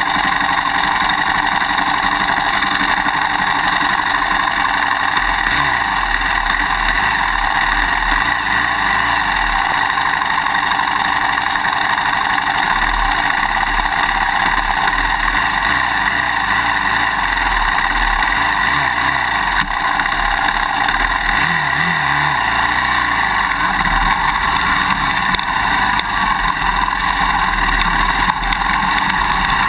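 Suzuki DR-Z400 single-cylinder four-stroke dirt bike engine running on a ride, heard from a GoPro mounted on the swing arm. It is buried under loud, constant clicking from the camera's quick-release buckle vibrating in its mounting bracket.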